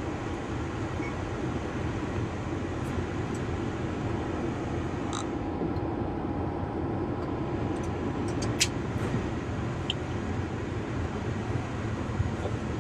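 Steady machine noise of a Boeing 787's systems heard inside the cockpit, with the hydraulic pumps running as the aircraft is towed back from the gate. A few short clicks sound over it, the sharpest a little past halfway.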